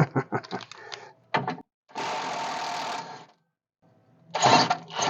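A power wrench run in short bursts on a stubborn rear shock-absorber mounting nut. There is rattling and clicking first, a steady run of a little over a second, then another loud burst near the end. The nut is seized and will not budge.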